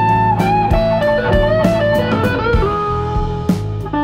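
Instrumental background music: a melody over a bass line and a steady beat, settling on a long held note near the end.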